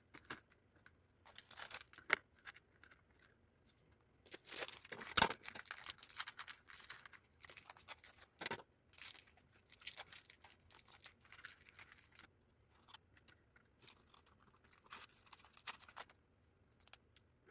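Graham crackers handled and laid into a clear plastic container: scattered faint rustling and crinkling, with crackers snapped to fit the edges and a sharp click about five seconds in.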